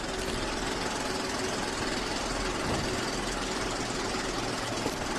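Steady machine noise with a faint hum, holding at an even level throughout.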